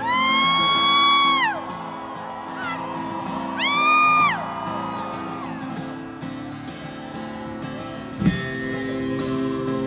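Live rock band playing through a festival sound system, guitar chords held underneath. A high voice cries out over it, held for about a second and a half at the start and again briefly around four seconds in, and a drum hit lands near the end.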